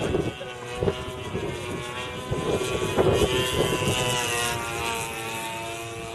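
Gasoline engine and propeller of a radio-controlled model airplane droning in flight, the pitch drifting up and down a little as it manoeuvres. Gusts of wind buffet the microphone.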